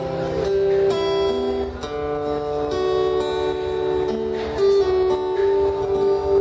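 Acoustic guitar strummed, the chords ringing on between strokes.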